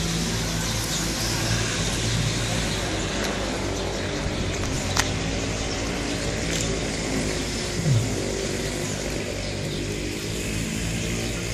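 Steady outdoor background noise with a low hum of vehicle engines running. There is a sharp click about five seconds in and a short falling tone near eight seconds.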